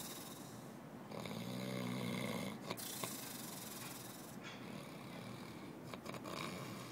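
A man snoring, with one long snore starting about a second in.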